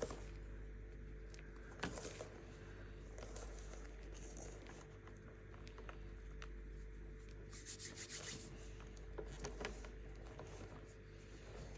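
Baking soda being crushed and rubbed, crunching and crumbling in scattered bursts, with a dense run of crackles near the middle. A steady low hum runs underneath.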